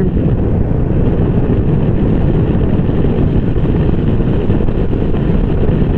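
125cc motorcycle cruising at a steady speed: a constant engine drone mixed with wind rushing over the microphone.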